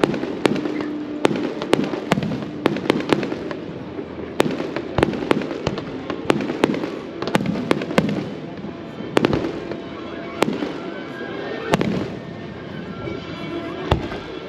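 Fireworks display: aerial shells bursting in a quick run of sharp bangs, about two a second at first, thinning to occasional bangs in the second half.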